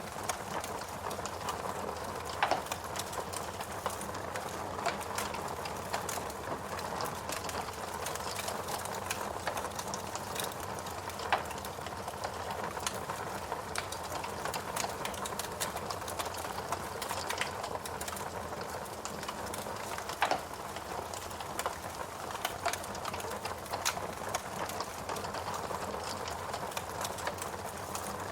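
Wood fire burning in a fireplace: a steady hiss with frequent small crackles and several louder, sharp pops of burning logs.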